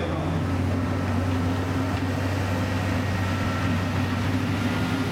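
Farm tractor's diesel engine running steadily with an even low drone.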